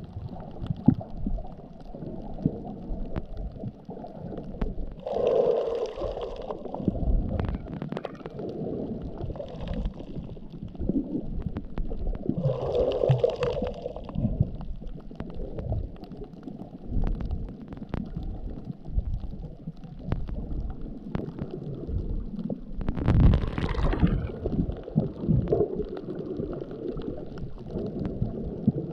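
Muffled underwater sound of a snorkeler's reef, heard below the surface: a low, steady rumble with gurgling and small knocks, and three louder rushing swells, roughly eight to ten seconds apart.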